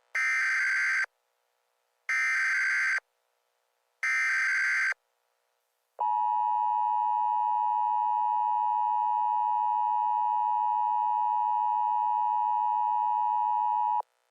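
Emergency Alert System tones: three one-second bursts of SAME digital header data, about two seconds apart, then the steady two-tone EAS attention signal (853 Hz and 960 Hz together) held for about eight seconds before cutting off sharply.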